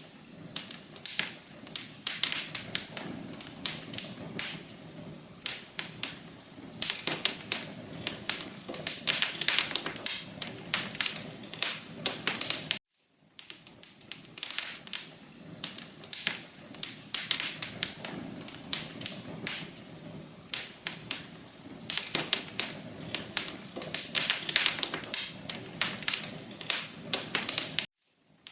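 Wood fire crackling in a fireplace: a dense, irregular run of sharp pops and snaps over a soft hiss. The sound cuts out briefly twice, about halfway through and again near the end.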